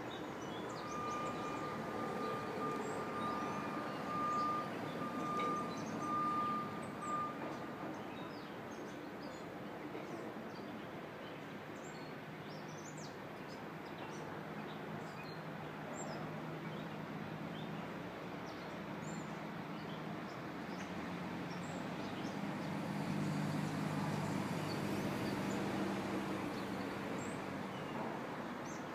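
Outdoor park ambience: scattered small bird chirps over the steady hum of distant traffic, with a steady high tone for the first seven seconds or so and a low hum that swells in the second half.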